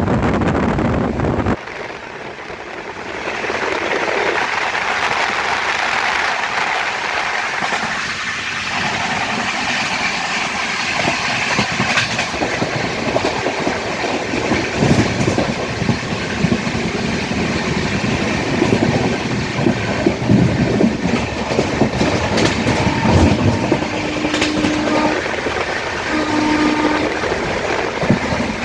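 Indian Railways superfast express train running at speed, around 120 km/h, with the steady rush of the run and irregular clickety-clack of wheels over rail joints. The level drops sharply about a second and a half in. Near the end come two short steady tones, like brief horn blasts.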